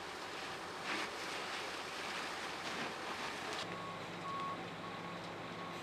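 A large structure fire burning, a steady rush of flames with a few sharp crackles and pops. About two-thirds in, a vehicle's reversing alarm starts beeping at an even pace over a low engine hum.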